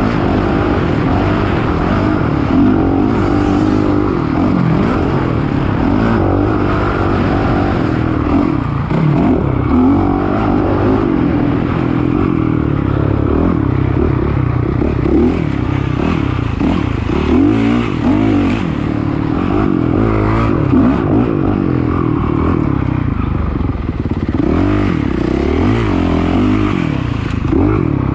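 Off-road dirt bike engine being ridden hard on a trail, the revs rising and falling continuously as the throttle is worked on and off, with rattling from the bike.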